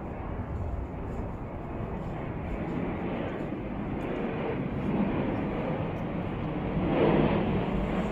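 Low vehicle rumble, growing gradually louder and peaking near the end.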